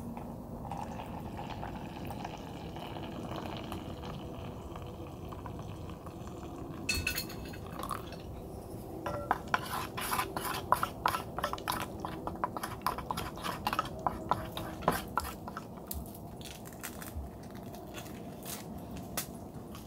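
Water poured in a thin stream from a gooseneck kettle into a stainless steel tumbler, a steady trickle for the first several seconds. Then a drink is stirred briskly in the steel cup, the stirrer clicking rapidly against its sides for about six seconds before tapering off.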